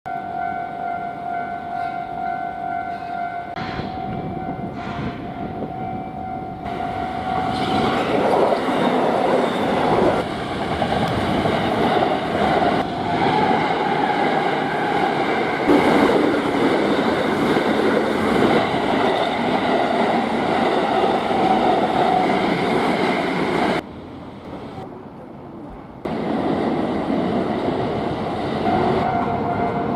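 A Japanese level-crossing warning bell rings its rapid, evenly repeating electronic ding, then an electric train passes over the crossing with a loud rumble and rail clatter for about fifteen seconds. The sound drops away suddenly, train noise starts again, and the crossing bell rings again near the end.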